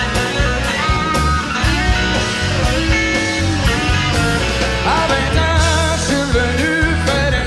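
Rock band playing live: an electric guitar lead over bass and drums with a steady beat, the lead line wavering in pitch from about five seconds in.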